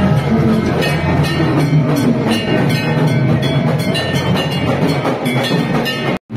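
Music with drums and a steady rhythmic beat, broken by a brief dropout to silence near the end.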